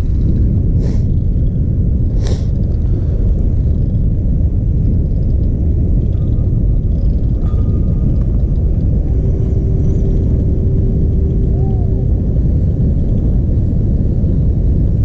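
Wind buffeting the camera's microphone: a loud, steady low rumble, with two faint clicks in the first few seconds.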